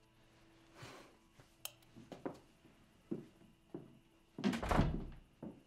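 A bedside lamp switch clicks off about a second and a half in, among soft rustles of bedding, and near the end there is one louder, longer rustle with a low thump.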